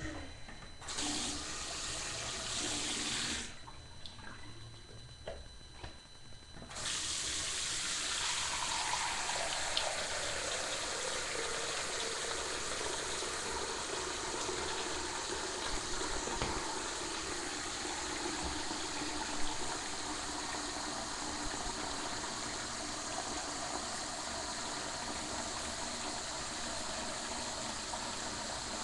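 Bathroom sink tap running: turned on briefly about a second in, shut off, then turned on again about seven seconds in and left running steadily, with a tone that slides down in pitch over the first few seconds of the flow.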